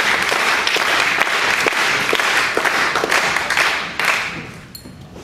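Audience applauding, the clapping fading away about four seconds in.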